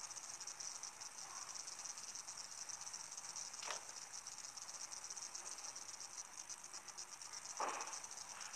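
Faint, steady high-pitched trilling of insects, with a single short click about halfway through and a brief soft sound near the end.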